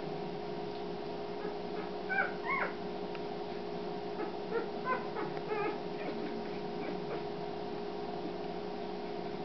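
Newborn Doberman puppies squeaking and whimpering while nursing: short high squeaks in a cluster about two seconds in and another about four to six seconds in, over a steady low hum.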